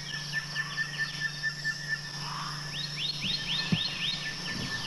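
Tropical forest ambience: a steady high insect drone with a rapid series of short chirped calls, about six a second, which fade and then return strongly about three seconds in. A single soft low thump comes just before the end.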